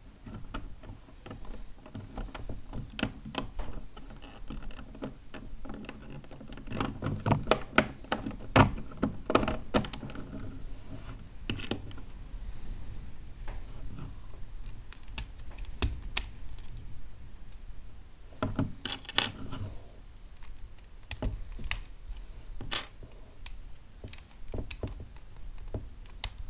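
Lego Technic plastic parts clicking and knocking irregularly as they are handled and pressed together during assembly, with a busier run of clicks a third of the way through.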